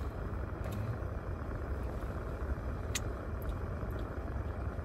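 Steady low rumble inside a car's cabin, the sound of the vehicle's running engine at idle, with a few faint clicks, the sharpest about three seconds in.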